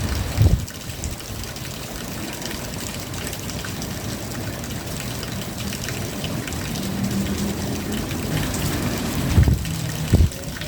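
Steady rain falling, with many close drops ticking on surfaces. A few short low thuds come near the start and again near the end, and a faint low hum sits under the rain in the second half.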